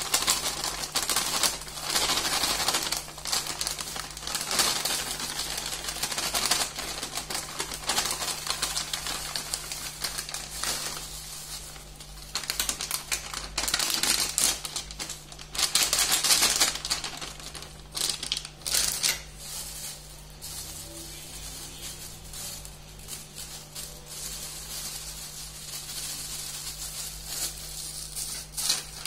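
Plastic cornflour packet crinkling and rustling as flour is shaken out of it into a steel bowl, in irregular crackly bursts. The bursts are loudest in the first half and quieter after about twenty seconds.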